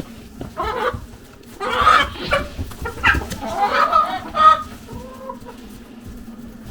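Chickens clucking in a run of short calls for about four seconds, then falling quieter, with a steady low hum underneath.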